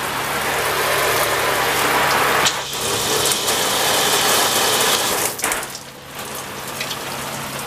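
Oxygenics Fury handheld RV shower head spraying a steady hiss of water onto the fibreglass shower wall, with a low steady hum beneath; the spray falls away about five and a half seconds in.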